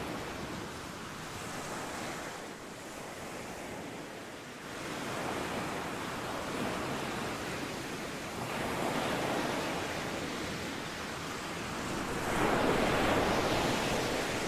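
Ocean surf breaking and washing up a beach, swelling and easing in slow surges every few seconds, the loudest one near the end.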